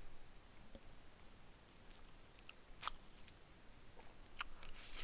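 A person quietly chewing cake, with a few faint short clicks and a brief rustle near the end.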